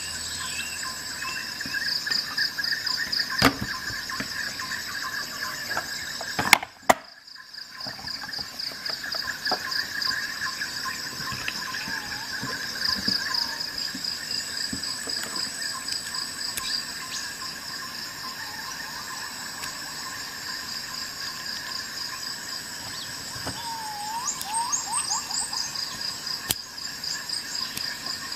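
Steady, rapidly pulsing insect trilling, like crickets, with a few short chirps. A few sharp clicks stand out, about 3.5 s and 7 s in.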